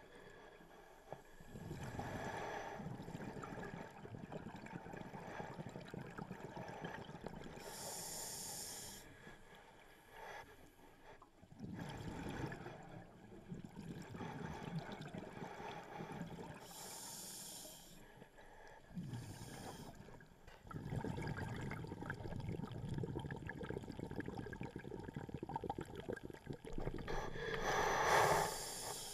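Scuba diver breathing through a regulator underwater: slow breaths about every nine seconds, each a short high hiss followed by several seconds of low rumbling exhaust bubbles.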